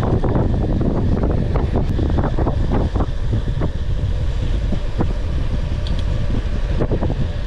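Wind buffeting the microphone of a camera on a moving bicycle: a steady low rumble broken by frequent short knocks and rattles.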